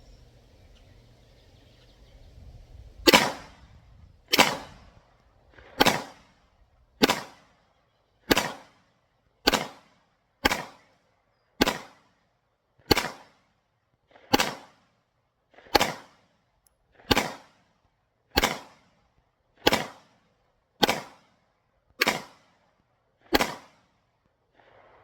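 Gunshots fired one at a time at a steady pace, about seventeen shots a little over a second apart, each trailing off briefly. The first shot is the loudest.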